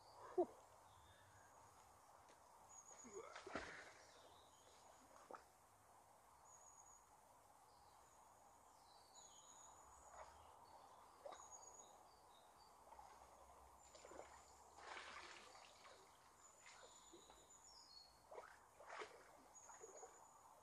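Near silence: faint birdsong of short high notes repeated every second or so, with a sharp knock just after the start and a few soft splashes as water is scooped from the river by hand.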